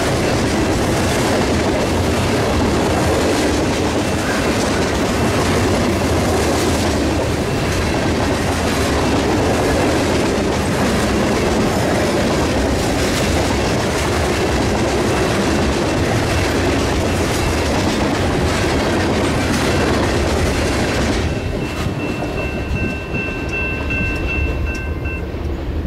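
Freight train of covered hopper cars passing close at speed, with a steady rumble and clatter of the wheels on the rails. About 21 seconds in the last car goes by and the sound falls away to the rumble of the receding train, with a thin, high, steady ringing tone near the end.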